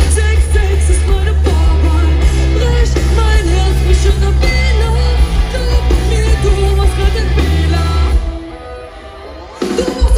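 Live pop-rap band with bass guitar, drums and electric guitar playing loud, bass-heavy music with vocals over it. Near the end the band drops out for about a second and a half, then comes back in at full level.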